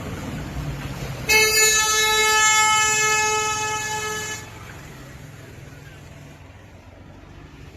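A vehicle horn sounds one long, steady blast of about three seconds, starting about a second in, over a low background rumble.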